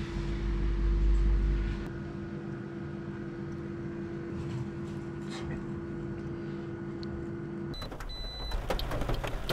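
A car's steady mechanical hum with a low rumble during the first two seconds. The hum cuts off suddenly about eight seconds in and gives way to a series of clicks and knocks.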